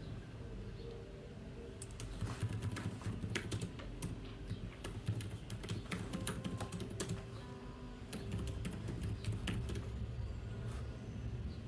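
Computer keyboard being typed on, irregular clicks of keystrokes coming in quick runs, with quiet music underneath.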